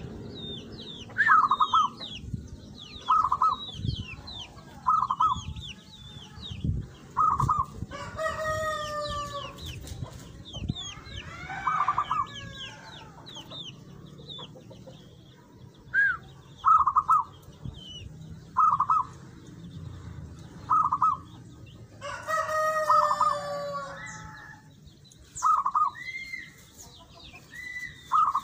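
Zebra dove (perkutut) cooing: short notes repeated every second or two in phrases, over the thin chirps of small birds. Twice, about 8 s and 22 s in, another bird gives a longer drawn-out call that falls in pitch.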